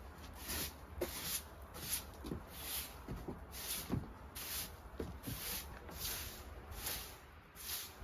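Rhythmic swishing strokes, about one and a half a second, with a few soft low knocks among them.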